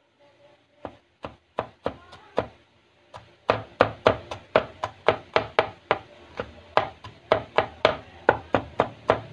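Kitchen knife chopping garlic on a wooden cutting board: a few separate knocks at first, then steady chopping at about three strokes a second from a few seconds in.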